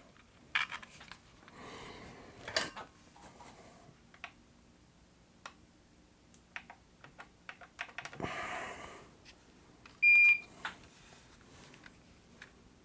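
Light clicks and taps of small tools on a workbench during desoldering with braid, with two soft hisses. About ten seconds in there is one short, high electronic beep, the loudest sound.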